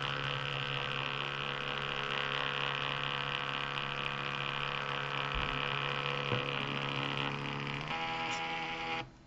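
Portable Bluetooth thermal printer feeding paper as it prints, its motor making a steady buzzing hum. The hum changes in tone about seven seconds in and stops suddenly near the end as the print finishes.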